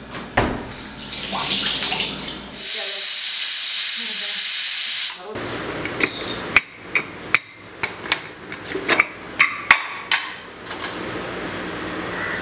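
Aluminium pressure cooker hissing out steam for about two and a half seconds. Then comes a quick, uneven run of sharp metal clicks and clinks as its weight valve and lid are handled and opened.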